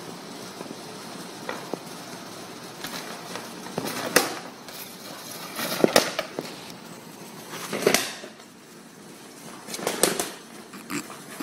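A French bulldog nosing, biting and shoving a half-deflated vinyl beach ball across a concrete floor: irregular crinkling and bumping, with a handful of sharp knocks, the loudest about six, eight and ten seconds in.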